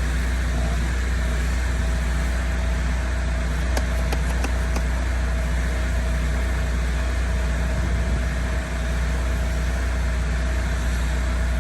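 Engine idling steadily, with a few faint ticks about four seconds in.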